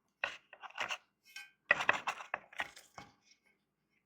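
Handling noise as a new foam surround is test-fitted onto a subwoofer speaker driver: a scatter of short clicks, taps and rustles, busiest in the middle.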